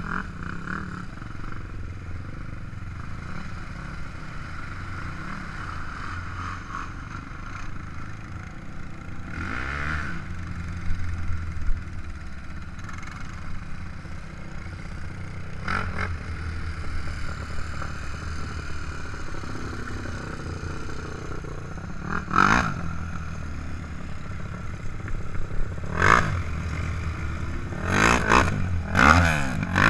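ATV (quad) engine running steadily while riding a dirt trail, with several short, sharp bursts: one each at about 10, 16 and 22 seconds and a cluster in the last few seconds.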